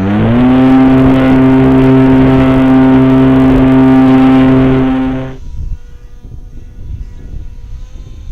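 RC paramotor's motor and propeller spinning up to full throttle, its whine rising and then holding one steady pitch for about five seconds before the throttle is cut; afterwards only low rumbling wind noise on the microphone.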